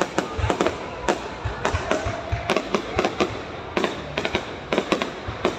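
Fireworks going off in quick, irregular succession, many sharp cracks and bangs every second.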